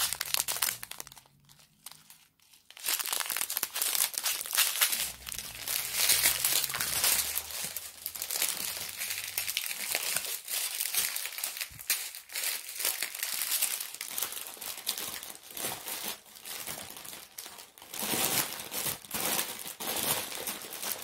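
Small plastic zip bags of diamond painting drills crinkling as they are handled and laid down, after a brief lull near the start.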